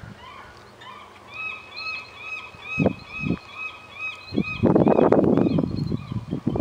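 Bald eagle calling: a rapid series of thin, high chirping whistles, each note rising and falling. Two low thumps come about three seconds in, and a loud rushing noise drowns the calls for the last two seconds.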